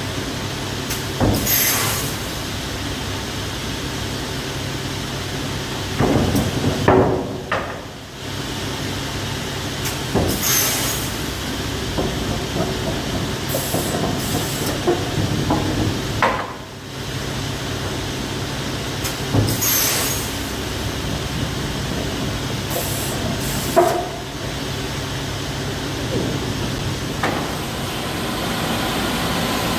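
Semiautomatic crosscut saw with pneumatic stops in operation: a steady machine hum, broken every several seconds by sharp hisses of compressed air and louder cutting and clunking passages as pieces are cut.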